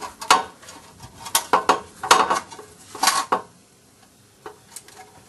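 Metal clanking and clinking in short irregular bunches as the engine's oil pan is worked loose and handled, then a pause with a few light ticks near the end.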